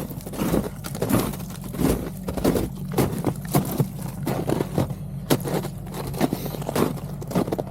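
Kubota tractor's diesel engine running steadily, with irregular crackling and scraping as its tyres crunch over ice and packed snow.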